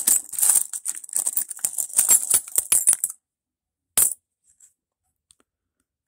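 A jumble of loose metal coins clinking and jingling as a hand stirs through a wooden box full of them, for about three seconds. Then a single clink about four seconds in as one coin is picked out, followed by a few faint ticks.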